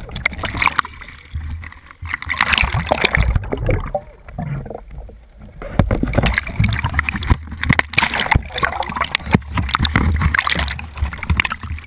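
Water sloshing, gurgling and splashing over a camera mounted at a kayak's waterline as it dips under and breaks the surface, in rough bursts with a quieter lull about four seconds in.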